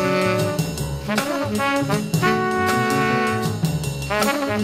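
Background jazz music with brass horns playing held notes over a bass line.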